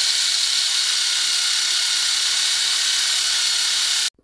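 Electric drill running steadily with a high whine, drilling out the stripped M6 thread in an aluminium handlebar stem to prepare it for tapping; it stops abruptly about four seconds in.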